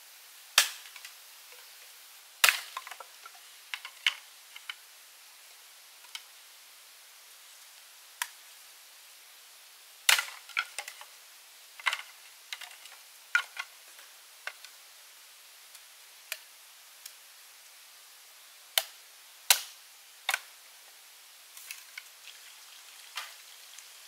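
Sharp knocks or cracks at irregular intervals, about twenty in all, several coming in quick clusters, over a faint steady hiss.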